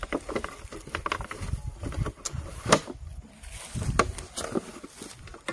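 Irregular clicks, knocks and rustles of metal snake tongs and a plastic jar being handled over dry leaf litter, the loudest a sharp knock almost three seconds in, with a low rumble beneath.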